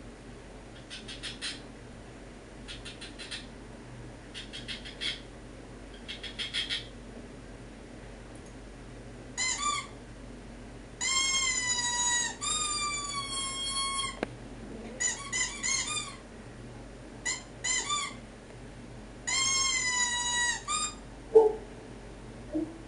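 Brittany spaniel whining: faint stuttering whimpers at first, then high-pitched whines, several held for more than a second with a slight rise and fall in pitch. A short knock comes near the end.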